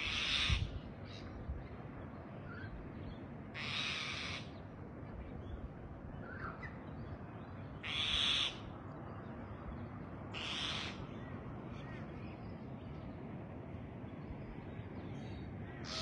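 A bird giving a harsh, hissing screech, each about half a second long, five times at intervals of three to four seconds. Faint chirps of small birds come in between.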